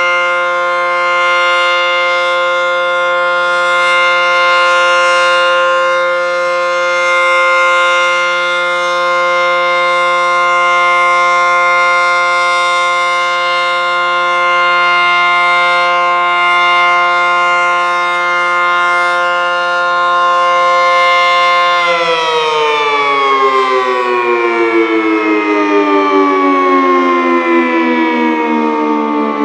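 ACA Banshee 115 electromechanical tornado siren sounding a steady, loud tone at full speed. About 22 seconds in, its pitch starts falling steadily as the siren winds down.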